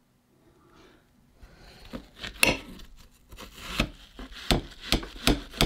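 Cutting and scraping strokes into a soft apple's flesh as a hole is cut through it. Faint at first, they start after about a second and a half and become sharp strokes, about two a second, near the end.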